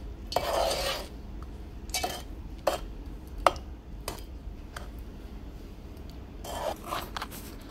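Metal spoon stirring a liquid mixture of condensed milk and melting butter in a steel pot, scraping along the bottom and sides, with a few light clinks of spoon on metal.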